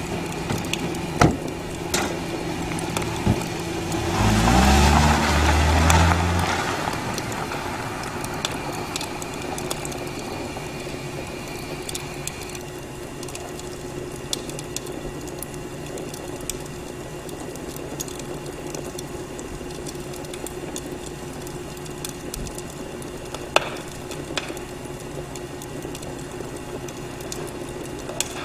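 Car doors shutting with a few sharp knocks, then the sedan's engine revs and the car pulls away over dry leaves and ground, rising in pitch for about two seconds. A steady low hum carries on after it, with an occasional faint click.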